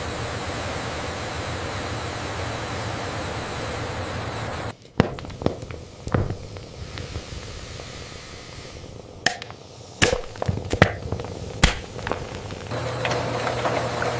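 Steady factory machinery hum that cuts off abruptly, followed by about seven sharp, irregular pops and knocks, then the machinery hum resumes near the end.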